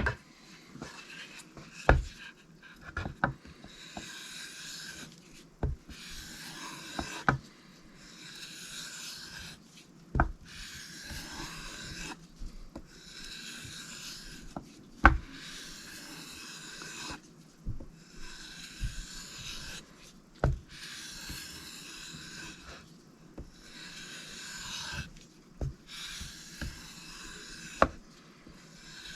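Cold Steel Mayhem knife blade drawn in long sharpening strokes along a strop or stone, a rasping stroke every second or two, with sharp knocks of the knife being set down or tapped now and then, the loudest about halfway through.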